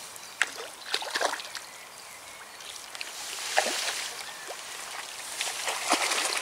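Water splashing as a hooked crucian carp thrashes at the lake surface while it is drawn into a landing net: a run of sharp splashes and sloshes, busier in the second half.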